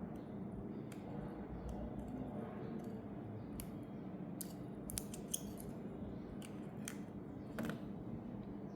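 Irregular small sharp clicks and ticks of hand tools on a G-Shock GDF-100 watch during a battery change, about a dozen of them, the loudest about five seconds in, over a steady low hum.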